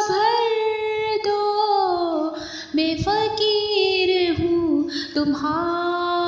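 A woman singing a devotional Urdu manqabat unaccompanied, in long, slowly gliding held notes, with a brief pause for breath a little before the middle.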